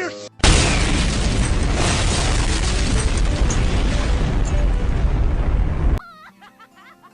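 Explosion sound effect standing in for an exaggerated comic sneeze: a long, loud blast of noise with deep rumble. It starts suddenly about half a second in and cuts off abruptly about six seconds in.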